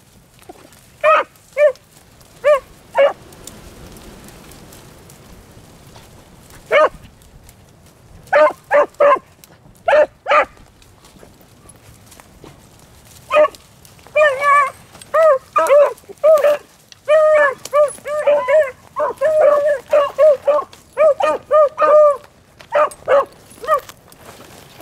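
Beagles giving short, pitched barks while trailing rabbit scent. The barks come scattered at first, then quick and nearly continuous through the second half.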